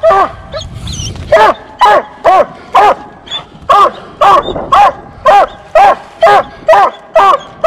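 Coonhound barking at the tree: short chop barks, about two a second, with a brief pause near the start. This is the dog's treed bark, saying the raccoon is up the tree.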